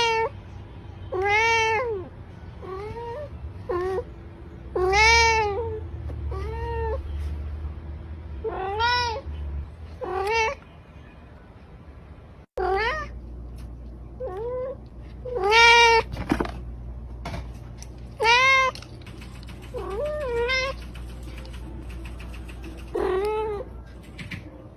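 Domestic cat meowing over and over, each meow rising then falling in pitch, about one every second or two, some loud and some faint.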